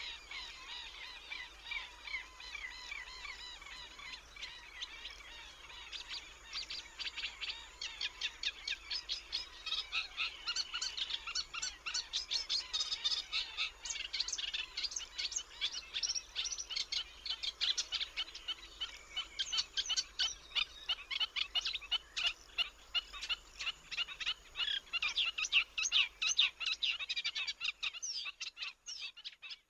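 Wetland bird ambience: birds chirping and calling over dense, rapid clicking, which grows thicker about ten seconds in.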